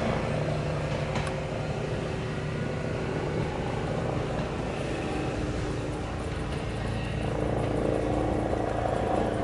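Electric tram running: a steady rumble with a low hum whose pitch settles about halfway through.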